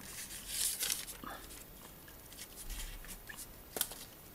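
Faint rustling with a few small clicks, the sharpest about four seconds in.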